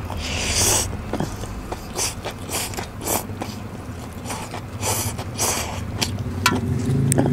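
Close-miked slurping and chewing of noodles from bakso soup: one long slurp about half a second in, then a run of shorter slurps and wet mouth smacks.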